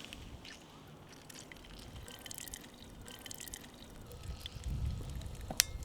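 Scattered small crackles and pops from a steak searing over campfire embers, with a brief low rumble about four and a half seconds in and one sharp snap near the end.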